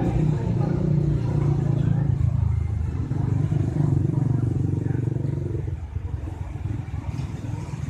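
A motor vehicle engine running steadily, its low hum dropping away about six seconds in.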